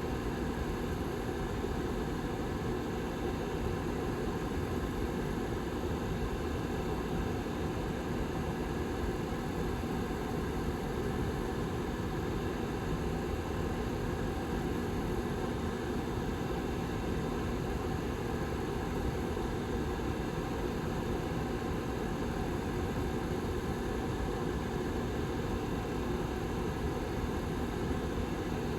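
Rear fan of a Lasko 755320 ceramic tower heater running steadily: an even rush of air with a faint low hum.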